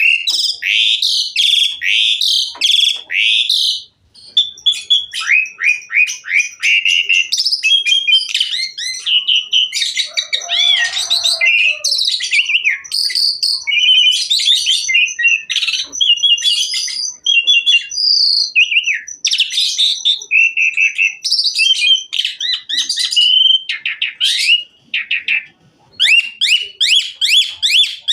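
Asian pied starling singing a long, varied song full of mimicked phrases: fast runs of rising notes, whistles and harsh chatter, with a short pause about four seconds in.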